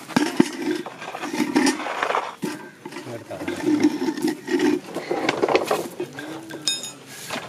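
Serrated hand saw cutting through a tied bundle of rolled paper fuse tubes on a stone slab, in quick back-and-forth strokes that come in runs of a second or two with short pauses.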